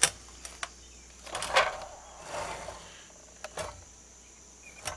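Sharp clicks and knocks of a saw being handled and adjusted, with a short scraping rustle about a second and a half in.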